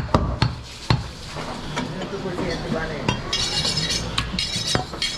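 Butcher's cleaver chopping goat meat on a wooden block, four sharp strikes in the first second. From about three seconds in, metallic scraping and clinking of the blade.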